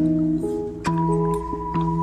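Background instrumental music with plucked, guitar-like notes changing every half second or so.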